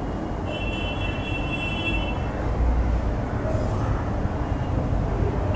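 Steady low rumble of background noise. About half a second in, a high tone sounds for nearly two seconds.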